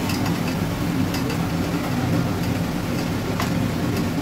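Ginger-garlic paste and ground spices frying in oil in a kadai, with faint crackles and a few sharp ticks, over a steady low hum.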